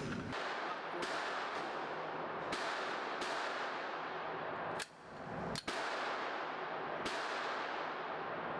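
Handgun shots echoing in an indoor shooting range, about six at irregular intervals with long reverberant tails, the two in the middle the loudest, over a steady rush of noise.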